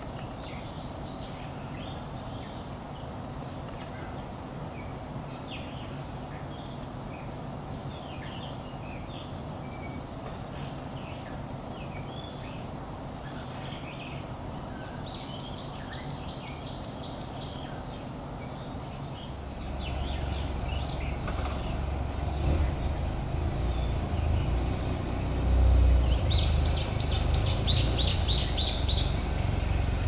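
Female blue rock thrush giving a soft, male-like warbling song of scattered short notes. Twice, about halfway and near the end, a brown-eared bulbul breaks in with a quick run of high, repeated notes. From about two-thirds in, a low rumble joins and is the loudest sound.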